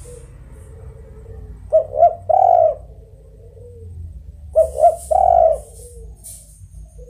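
Spotted dove (tekukur) cooing twice, each call two short coos followed by a longer drawn-out coo and a soft trailing note, about three seconds apart.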